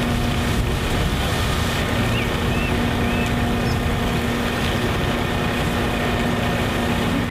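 Concrete mixer truck running steadily as it discharges concrete, a constant engine hum under a loud, even rumble.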